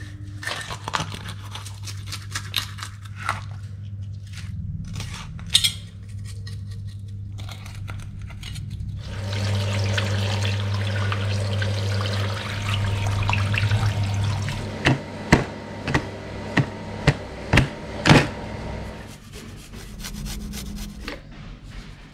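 Small tilapia being gutted and washed by hand on a wet tiled floor: first a knife clicking and scraping against the fish, then water running and splashing for about five seconds, then about seven sharp knocks roughly half a second apart.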